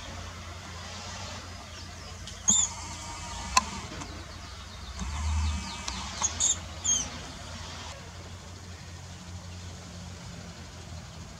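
Mouse squeaking in short, high squeaks: once about two and a half seconds in and a few more times around six to seven seconds, with a sharp click in between, over a steady low rumble.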